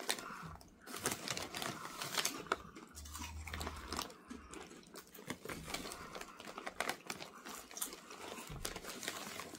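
Foil chip bag crinkling as it is handled, mixed with the crunch of Takis Chippz BBQ Blast potato chips being chewed; many small crackles.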